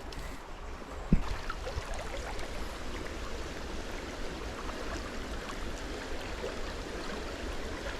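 Steady rush of flowing river water, with a single sharp low thump about a second in.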